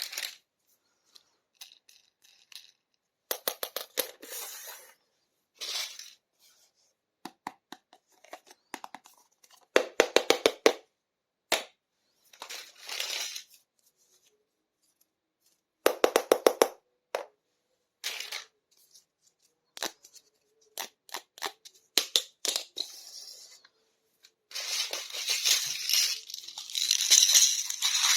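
Small plastic toy kitchen pieces and their packaging being handled in a series of separate bursts: quick runs of sharp plastic clicks and rattles, short rustles, and a longer spell of crinkling and tearing packaging near the end.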